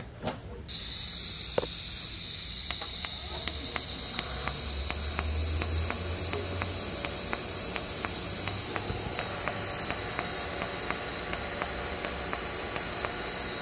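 TIG welding arc on stainless steel on a pulse setting (80 amps, 1.4 pulses a second), with 308L filler wire laid into the puddle. It strikes about a second in with a sudden steady high hiss, with faint regular ticks running through it.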